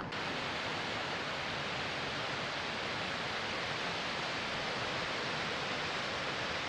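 Swollen, silt-laden alpine river running high after heavy rain: a steady, even rush of fast water.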